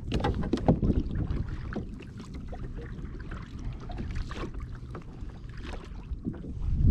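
Open-sea water slapping and splashing against a kayak's hull, with wind buffeting the microphone as a steady low rumble and a few short splashes.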